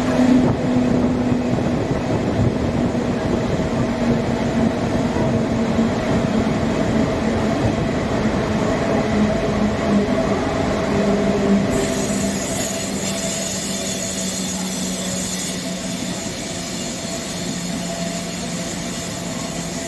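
Passenger express train in motion: rumble of the wheels and running gear with a pitched whine that slowly falls. A high hiss comes in about twelve seconds in, and the sound eases off slightly after it.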